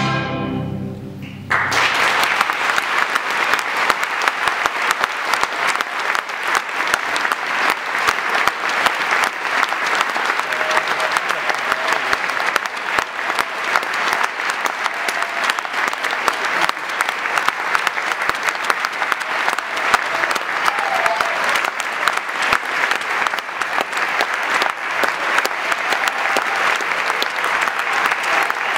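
A symphony orchestra's last chord fades out, and about a second and a half in an audience breaks into dense, steady applause.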